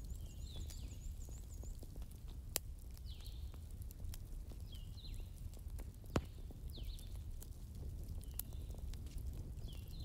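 Short high chirps, like small birds calling, repeat every second or two over a low steady hum, with a fast high trill near the start. Two sharp clicks stand out, the louder one about six seconds in.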